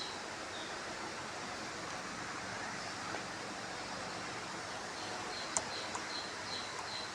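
Steady background hiss with an insect chirping in short, evenly spaced high pulses, about two a second, heard at the start and again from about five seconds in. Two small clicks come about five and a half and six seconds in.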